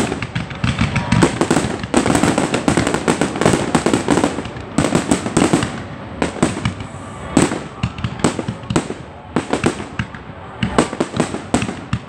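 Fireworks going off in quick succession: many sharp bangs and crackles from a firework barrage and fountains. The bangs thin out a little past the middle and come thick again near the end.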